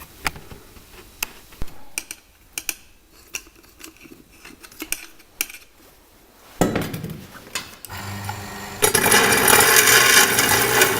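Sharp metallic clicks and knocks as a brass padlock is handled. A rougher scraping then starts, and near the end it turns into a loud, steady rasp of a saw cutting through the padlock's brass body.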